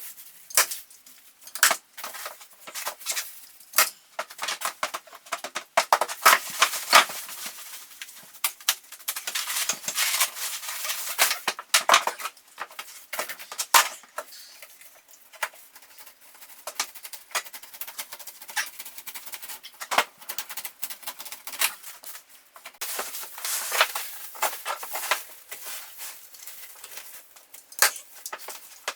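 Irregular rustling and crinkling with many light clicks and taps from building materials being handled, in uneven clusters with short lulls.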